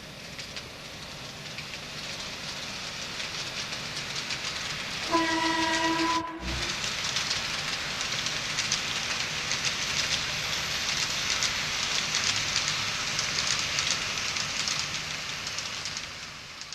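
Train running along the rails with steady wheel clatter. About five seconds in, a single horn blast on one note lasts just over a second; it is a dubbed recording of a real train horn.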